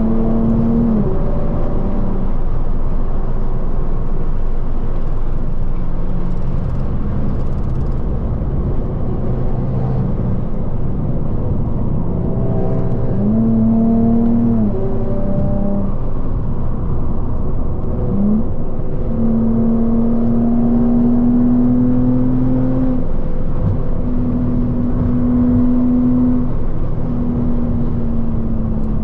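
Car engine running steadily while driving, heard over tyre and road noise, its pitch dipping and rising briefly a few times as the throttle changes.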